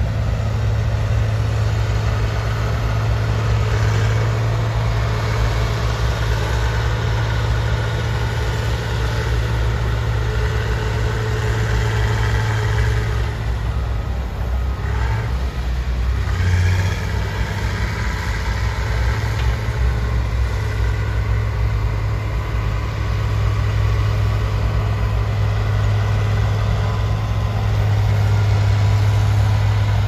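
Diesel engines of excavators, a bulldozer and dump trucks running together in a steady low drone. The engine note dips and shifts briefly about halfway through as the machines work.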